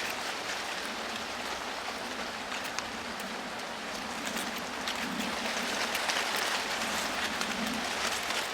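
Wind blowing through a cornfield: the corn leaves rustle in a steady hiss, with many small crackles and gentle swells as the gusts rise and ease.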